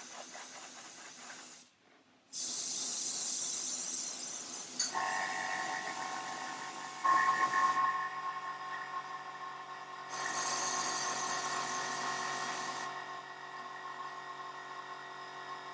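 Airbrush spraying paint in long hisses of compressed air, one starting a couple of seconds in and another about ten seconds in. A steady whining hum joins about five seconds in and runs on.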